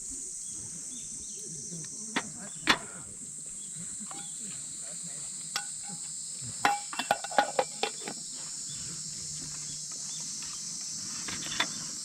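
Steady high-pitched chorus of crickets and other insects, broken by a few sharp clicks and clinks: one about three seconds in, a quick cluster a little past halfway, and one near the end.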